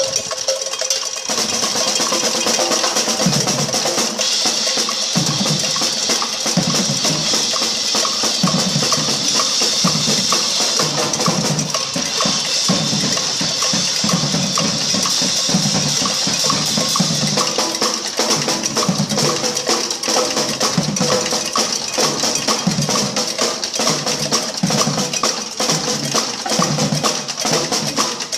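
Several drum kits played together by a drum ensemble: a fast, continuous rhythm of tom, snare and bass-drum hits with steady cymbal shimmer. The low drums come in about a second in.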